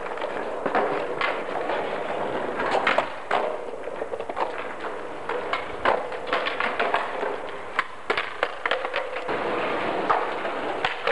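Skateboards clacking and knocking on concrete paving as skaters pop tricks and land, with wheels rolling over the slabs: many sharp, irregular knocks over a steady background noise.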